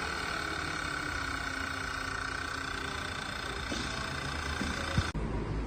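Freshly rebuilt VW Tiguan engine idling just after start-up: a steady running note with a constant high whine over a low rumble. The sound cuts off abruptly about five seconds in.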